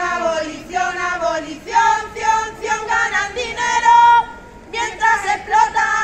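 A group of women singing a protest song together, unaccompanied, with a long held note about four seconds in.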